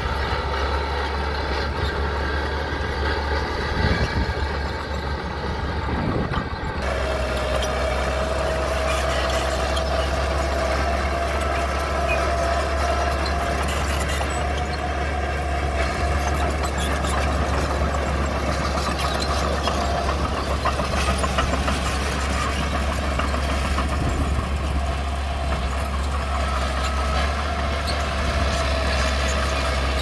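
Engine of small earthmoving machinery running steadily. About seven seconds in, the sound changes abruptly and a steady whine joins the engine.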